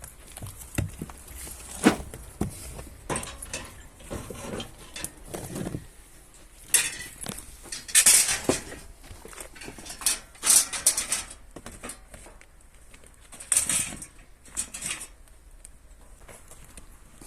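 Irregular knocks, clinks and rustling from hands-on work, with several louder rustling bursts about halfway through and again near the end.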